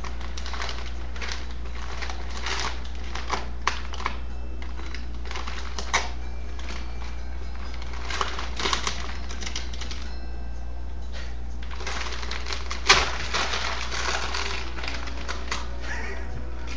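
Gift-wrapping paper crinkling and crackling in irregular runs as the cat wrapped in it shifts about, with one sharper crackle about 13 seconds in. A steady low hum runs underneath.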